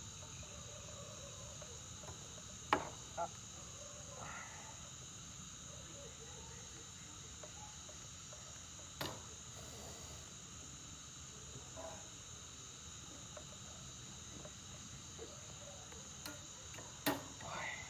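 Steady, high-pitched chorus of night crickets, with a few sharp clicks scattered through it, the loudest a little under 3 seconds in and again near the end.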